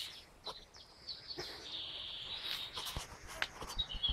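A bird singing: a long high note in the middle, then a run of short high chirps near the end, with a few faint clicks.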